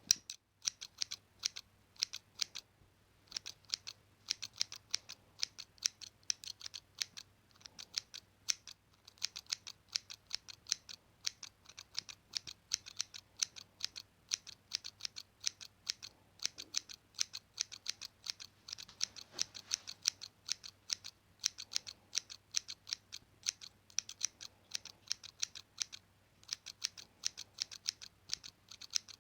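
Large scissors snipping over and over in quick, crisp cuts, several snips a second, with a few short pauses.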